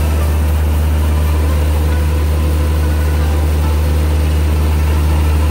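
Rice-milling machine running steadily as it hulls paddy: a loud, even, low hum with a rushing noise of grain above it.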